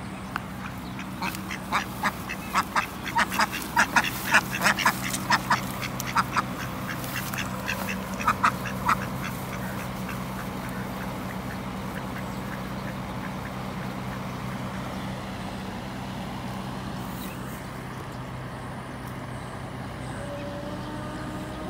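Domestic ducks quacking: a rapid run of loud quacks from about a second in, thinning out and stopping near the middle, over a steady low hum.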